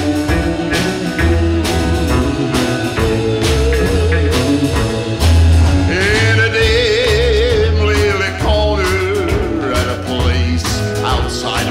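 Country band playing an instrumental break between verses of a 1961 country song: strummed acoustic archtop guitar, upright bass and drums keep the beat under a lead melody with wide vibrato, which fits an electric guitar solo. The lead line is strongest from about six to nine seconds in.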